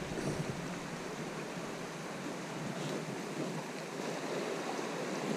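Shallow, stony creek running: a steady rush of water over rocks.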